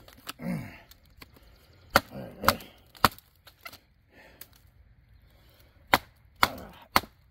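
A Survive Knives GSO 4.5 bushcraft knife in K890 steel chopping into a split green sapling stump: sharp blade-on-wood strikes, mostly in two quick runs of three about half a second apart, with a few lighter hits between. A couple of short grunts of effort come with the early strokes.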